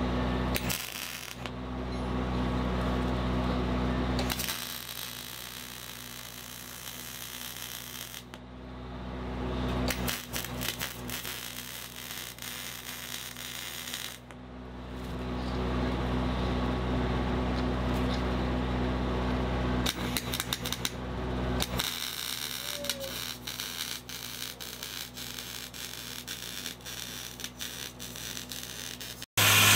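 Electric arc welding on sheet steel: a crackling, sputtering arc that starts and stops several times in runs of a few seconds, over a steady low hum.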